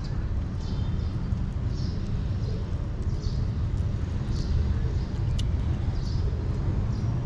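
A kitten chewing and licking wet cat food, short soft smacks about once or twice a second, over a steady low rumble, with one sharp click about five seconds in.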